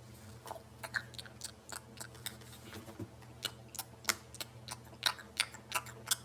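Quick, irregular plastic clicks and crackles, about three to four a second and louder near the end, from a toy puppy being fed and its plastic parts worked by hand.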